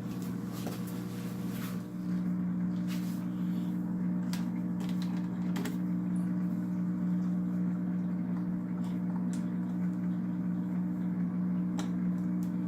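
Polar Aurora canister filter's pump motor running with a steady electric hum, a little noisy, stepping up slightly about two seconds in. Scattered light plastic clicks and knocks as the filter's front cover is handled and fitted.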